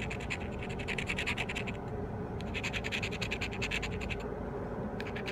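Scraping the coating off a scratch-off lottery ticket taped to a book: quick back-and-forth strokes in a run of about two seconds, a short pause, a second run, and a third starting near the end.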